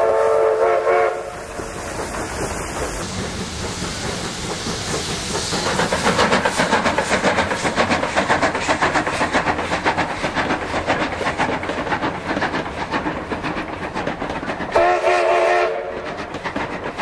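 Steam locomotive whistle sounding a chord-like blast for about a second, then the train running past with a fast, even rhythmic clatter; the whistle blows again briefly near the end.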